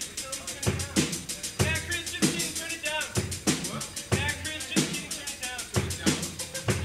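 Punk rock band playing live, carried by a drum kit keeping a fast, steady beat: quick ticking cymbal strokes over heavy bass-drum hits, with a wavering pitched line above.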